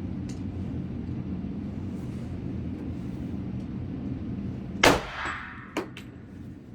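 A single M1911 pistol shot in .45 ACP: one sharp bang about five seconds in, with a metallic ringing tail. Two light clinks follow within about a second.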